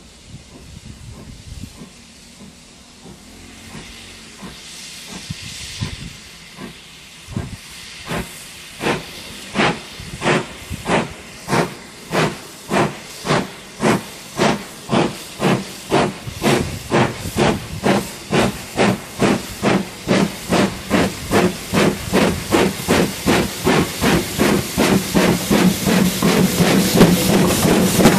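BR Standard Class 2MT 2-6-0 steam locomotive starting away with its train. A hiss of steam comes first, then exhaust chuffs begin about six seconds in and grow louder and quicker, from roughly one to nearly three a second, as it approaches. Near the end it passes close by, with running noise from the wheels.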